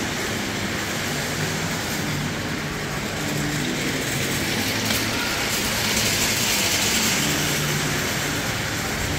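Shopping mall concourse ambience: a steady rushing background noise, growing a little louder and brighter about halfway through, with faint low hums coming and going.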